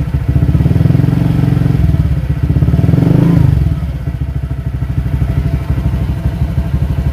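Honda Vario 125 scooter's single-cylinder engine idling through an aftermarket MDM slip-on exhaust, very noisy, with a short blip of the throttle about three seconds in before it settles back to idle. It is running just after an oil change so the fresh oil circulates.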